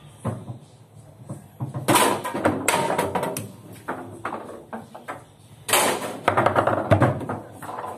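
Table football in play: the ball and the rods knock sharply against the table. There is a run of hard knocks about two seconds in, and more sharp knocks near six and seven seconds.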